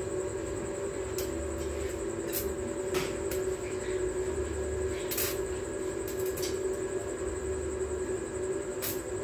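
Electric arc welding on steel bars: a steady buzzing hum with a few sharp pops scattered through it.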